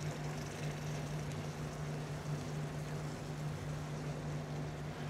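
Steady low hum over a soft, even hiss: the background of a commercial kitchen's running equipment. Diced tomatoes are being stirred in a sauté pan.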